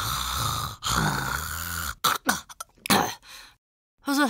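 A boy snoring in deep sleep, voice-acted: two long, loud snores, then a run of short broken snorts and mouth sounds about two seconds in as he stirs, and a brief voiced grunt near the end.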